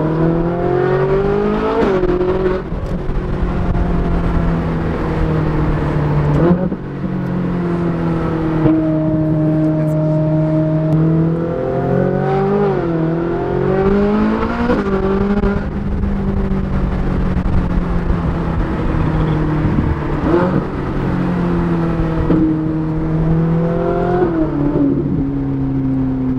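Ferrari 458 Italia's naturally aspirated V8 through an iPE exhaust, heard from inside the cabin on the move. The engine note rises and falls repeatedly with throttle, and its pitch jumps sharply several times at gear changes.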